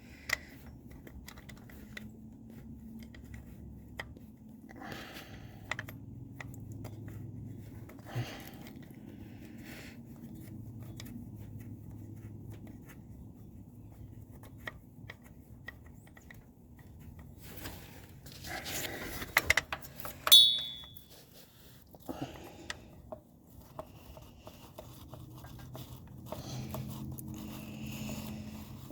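Hands and tools working at the truck's transmission: scattered rustling and small clicks of parts being handled. About 20 seconds in, a sharp metallic clink rings briefly.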